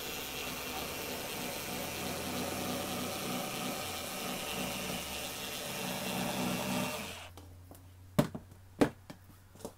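Bosch IXO cordless screwdriver's small electric motor running steadily, driving its rotary cutter attachment around a curve through two layers of quilting cotton; it stops about seven seconds in. Two sharp knocks follow about a second apart.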